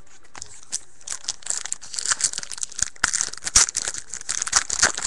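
2010-11 SP Authentic hockey card pack being torn open, its wrapper crinkling and crackling in a dense run of sharp crackles that starts about half a second in.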